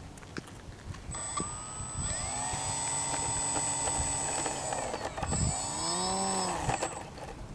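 Radio-controlled Super Cub model plane's motor and propeller whining as it taxis: the pitch rises about a second in, holds, dips and climbs again for a short burst of throttle, then the motor cuts off near the end.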